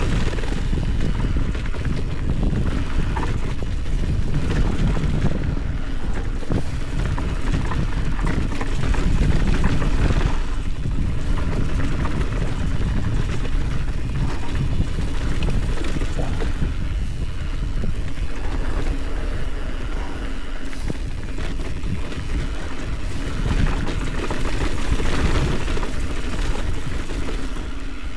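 Wind rushing over the action camera's microphone during a fast mountain-bike descent, mixed with the tyres rolling over a loose dirt trail and the bike rattling over the bumps.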